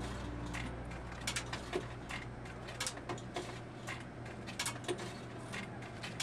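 Coins being fed into a soda vending machine, a string of sharp, uneven metallic clicks over a low steady hum.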